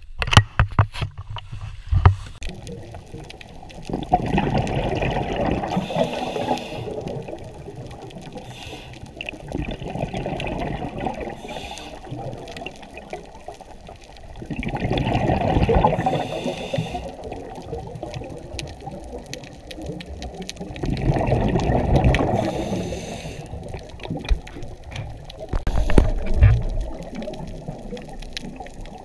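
Muffled underwater noise picked up by an action camera submerged in its housing: a low, dull water rush that swells louder three times. A few sharp knocks and splashes come in the first two seconds as the camera goes under.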